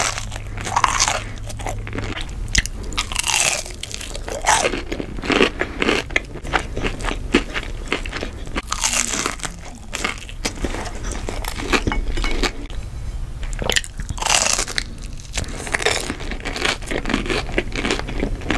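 A person biting and chewing breaded fried fish and shrimp, with crisp crunches and a louder bite every few seconds.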